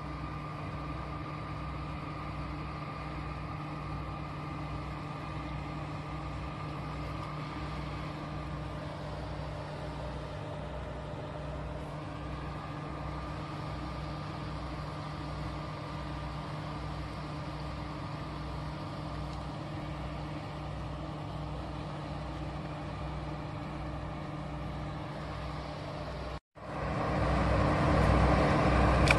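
Steady engine hum with a slow, regular low throb, like a motor running at idle. About three seconds before the end it cuts out for a moment and comes back louder.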